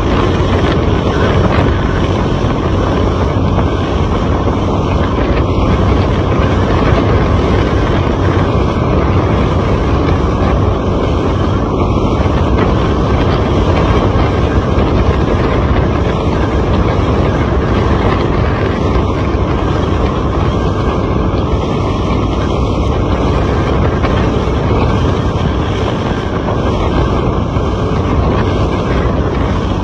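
Steady rumble of a truck's engine and road noise, with wind buffeting the microphone.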